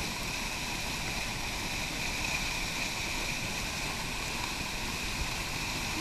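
Waterfall cascade rushing steadily, with a faint steady high tone above the rush.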